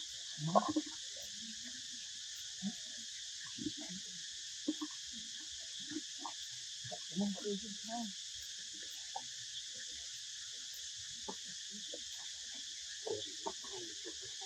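Steady, high-pitched chorus of insects such as crickets, unbroken throughout. A scattering of soft, brief lower sounds comes and goes over it.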